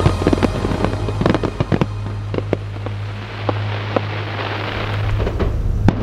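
Fireworks going off: a string of irregular sharp bangs and pops, then a dense hissing crackle from about two seconds to five seconds in, and a single sharp bang near the end, over a steady low rumble.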